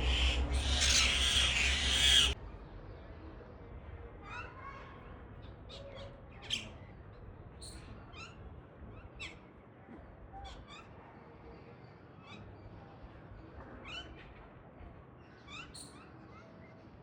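A loud rushing noise cuts off suddenly about two seconds in. After it, birds in a tree give many short, sharp, high calls, scattered every second or so through the rest.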